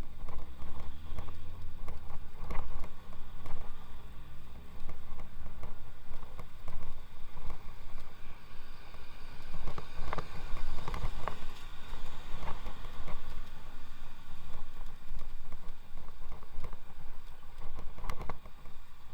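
Riding on an electric bicycle: a steady rumble of road and wind noise, with scattered clicks and rattles.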